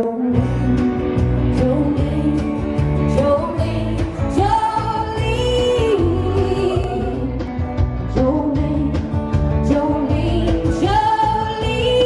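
A band playing, with a woman singing long held notes over guitars and a steady beat.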